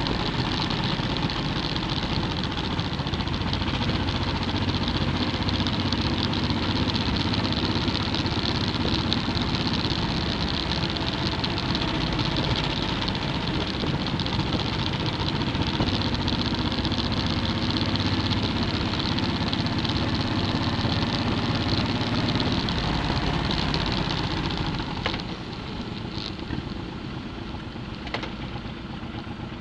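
Motorcycle engine running steadily with wind and road noise while riding; about twenty-five seconds in it quietens as the bike slows down.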